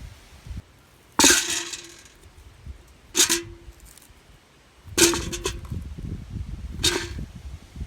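Four sharp metallic clangs about two seconds apart, each ringing briefly: metal being struck, in the course of harvesting potatoes.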